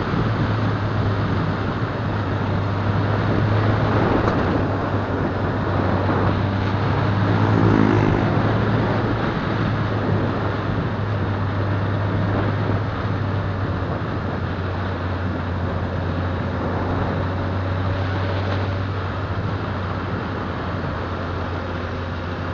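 Riding noise from a moving motorcycle: steady wind and road rush with the engine running underneath. A louder engine note swells briefly about eight seconds in.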